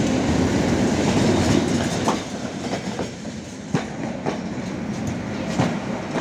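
Trams on street track: a tram rumbles past close by for the first two seconds. Then a Tatra T6A5 tram rolls in slowly, its wheels clacking sharply over rail joints about six times.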